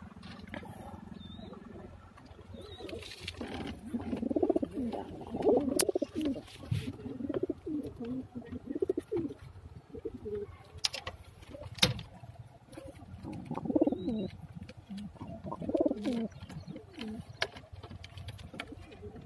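Domestic pigeons cooing in the loft: several low, throbbing bouts a second or two long, with a few sharp clicks in between.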